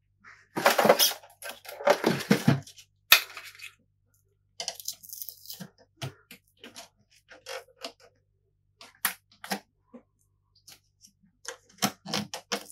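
Hard plastic casing parts of a PlayStation 3 being handled and pried with a metal pick: a few loud clattering bursts and a sharp click in the first three or so seconds, then scattered clicks, taps and scrapes as the pick works at a plastic trim piece held on by adhesive.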